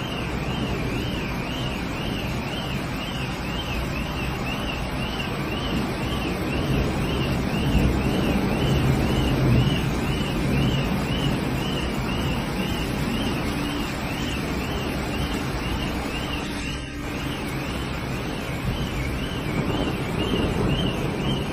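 Floodwater rushing through a street, a steady loud roar of water, with an electronic alarm warbling up and down about twice a second throughout.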